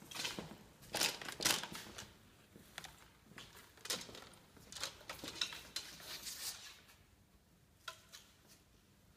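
Footsteps and rustling handling noise on a concrete floor, with several loud knocks and rustles in the first two seconds and scattered clicks after. Near the end one short click with a brief ring as a recurve bow is readied for a shot.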